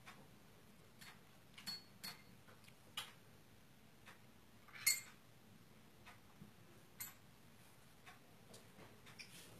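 A handful of light, irregular clicks and taps of tableware on a plate as children eat cut fruit at a small table, the sharpest about five seconds in.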